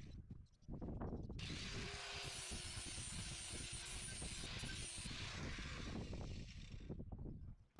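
Handheld angle grinder running, its abrasive disc grinding the edge of a steel rototiller tine to sharpen it, with a high whine over the grinding noise. It breaks off briefly near the start, then runs steadily for about five seconds before dying away near the end.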